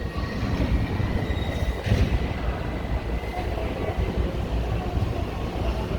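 Docklands Light Railway B92-stock train pulling out of the station: a steady low rumble of wheels and running gear on the track, with a thin, steady high whine through most of it and a brief louder rush about two seconds in.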